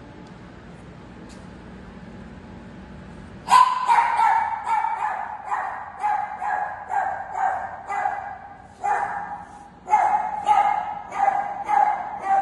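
A puppy yapping in a quick run of short, high-pitched yips, nearly three a second, starting a few seconds in after a low steady background noise.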